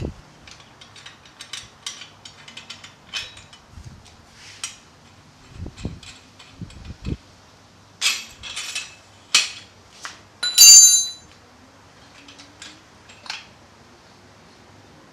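Hand tools and metal parts being handled: scattered clicks and clinks, a few low knocks, and one louder clink that rings like metal about two-thirds of the way through.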